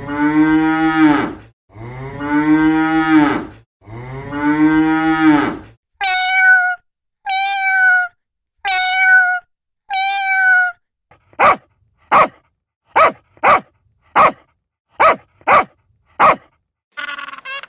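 A cow mooing three times in long, low calls, then a cat meowing four times. These are followed by a run of about eight short, sharp calls from another animal.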